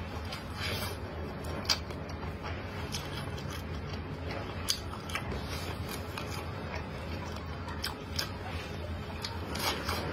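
A person eating black glutinous corn on the cob: biting and chewing, with scattered sharp clicks every second or two, over a steady low hum.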